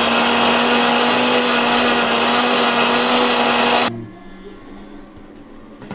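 Preethi mixer grinder's motor running at a steady pitch, blending banana and milk, then cutting off abruptly about four seconds in.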